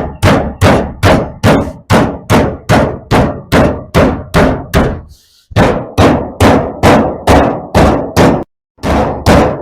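Hammer blows on steel plate, about three a second, each with a short metallic ring, as a bend in the plate is worked. The blows pause briefly about five seconds in and again near the end.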